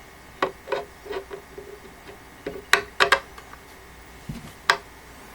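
Screw being hand-tightened with a Phillips screwdriver into a printer stand's steel support and wooden panel: about nine irregular sharp clicks and knocks, the loudest clustered near the middle.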